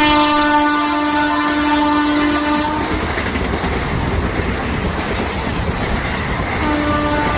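WAP-4 electric locomotive horn sounding as an express train passes at high speed, its pitch dropping right at the start. The horn stops about three seconds in, leaving the rush and clickety-clack of the coaches' wheels over the track, and sounds again near the end.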